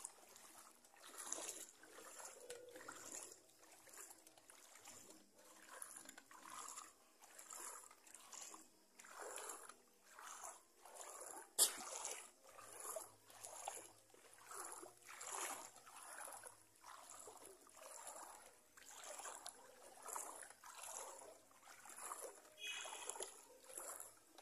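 Creek water splashing and sloshing in short, irregular strokes about once a second, as something moves through it, with one sharp click about halfway through.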